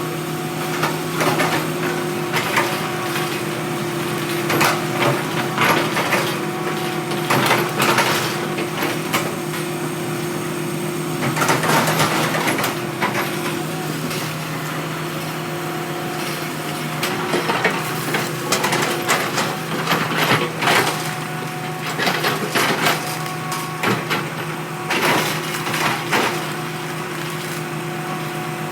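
Hitachi hydraulic excavator's diesel engine running steadily under load, with repeated sharp clanks and cracking knocks of wood and metal.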